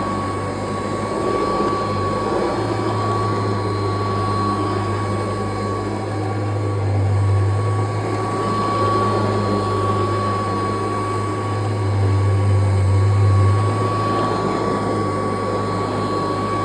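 Kirby Heritage II upright vacuum cleaner running steadily on carpet, with a low hum and a steady high whine; its level swells slightly a couple of times.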